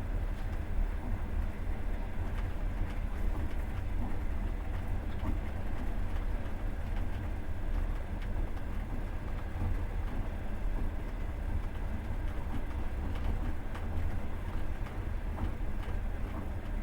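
Passenger train running along the line, heard from inside the carriage: a steady low rumble from the wheels and running gear, with faint clicks of the wheels over the rails.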